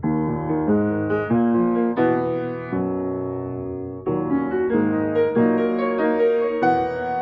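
Slow piano music: chords struck a little more than once a second and left to ring.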